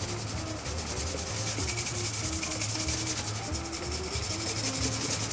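Bristle shoe brush scrubbing the leather sole of a shoe in rapid, even back-and-forth strokes, working the sole moisturizer cream into the leather after the fibres have been pressed flat with a stick.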